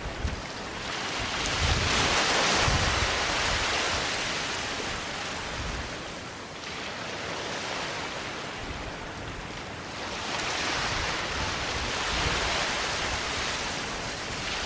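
Waves washing onto a sandy beach: a steady hiss of surf that swells twice, about a second in and again about ten seconds in, as waves break and run up the sand.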